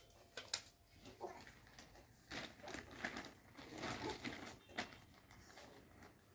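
Faint rustling and handling noises, with a few soft, short vocal sounds.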